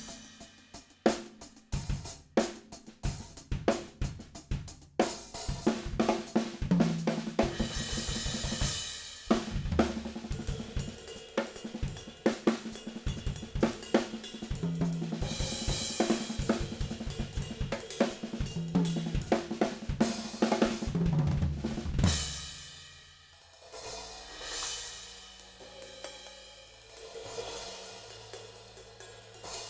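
Drum kit played with Zultan Heritage cymbals: snare and bass drum strokes under hi-hat, crash, splash and ride cymbals. About 22 seconds in the beat ends on a crash, and a few softer cymbal swells ring out after it.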